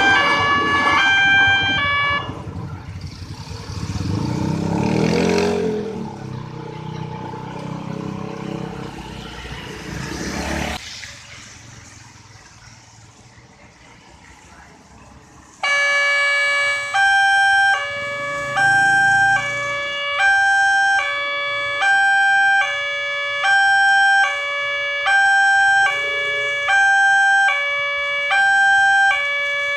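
Railway level-crossing warning siren, sounding from a loudspeaker horn at the crossing barrier with a stepped electronic tone. It gives way to a rising and falling rush, most likely a passing train, which cuts off abruptly. After a short lull the siren starts again suddenly, alternating between two tones each held about a second, the warning that a train is approaching.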